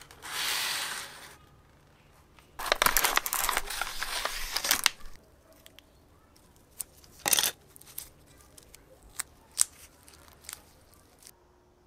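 Plastic wrapper of an epoxy putty stick being cut and torn open with a blade: a crinkly, crackling stretch of a couple of seconds, after a short rushing noise at the start. Scattered small clicks and taps follow as the putty is handled.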